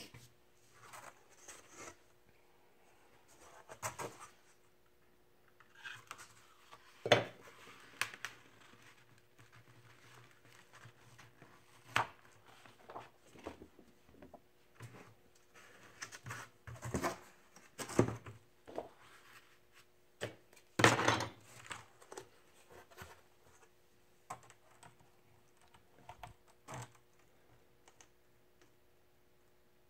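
Paper masks and stencil pieces being handled and lifted off a freshly spray-painted poster board: scattered rustles, scrapes and knocks, a few of them sharper, with short gaps between.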